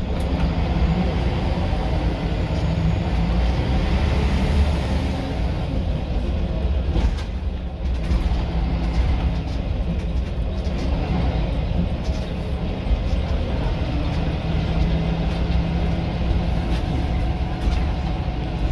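Scania L94UB bus's rear-mounted nine-litre five-cylinder diesel engine running hard under way, heard from inside the passenger saloon: a loud, steady low rumble, with a few brief rattles about seven seconds in.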